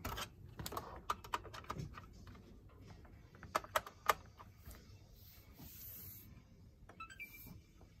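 Clicks, taps and knocks of hands handling the bare Xbox One S chassis and its cables, many in the first half and loudest about three and a half to four seconds in, followed by a brief high tone about seven seconds in, as the console is powered up.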